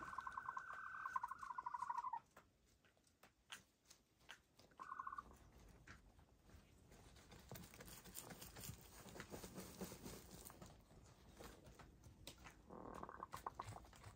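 Hens dust bathing: a hen's pulsed trilling call lasting about two seconds, a short one around five seconds in, and another near the end, with faint scratching and patter of dirt between the calls.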